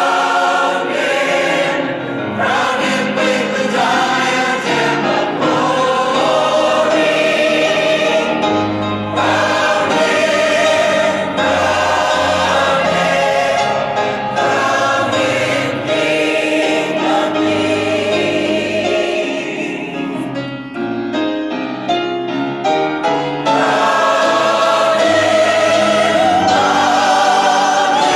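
Large mixed choir of men's and women's voices singing a gospel-style choral piece with grand piano accompaniment. About two-thirds of the way through the texture thins into a choppier passage before the full choir returns on long held notes with vibrato.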